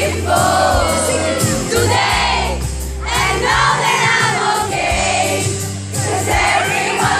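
Live song with a singer's voice over band accompaniment and sustained bass notes, heard through a loud venue sound system.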